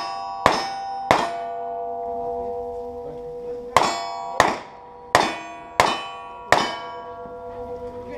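Gunshots striking steel targets, each a sharp crack followed by the plate ringing on: two hits, then after a pause of about two and a half seconds, five more at a steady pace of about one and a half a second.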